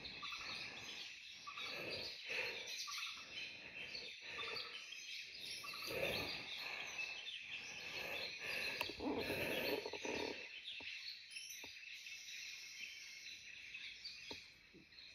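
Birds chirping and calling together in the forest canopy, over a steady high background. Low rustling noise comes and goes through the first ten seconds.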